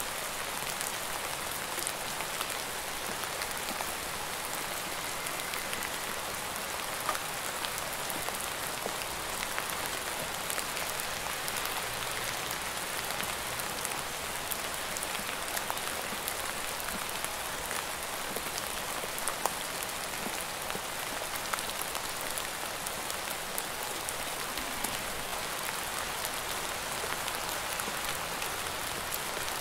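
Steady rain falling: a dense, even hiss with many small sharp drop ticks scattered through it.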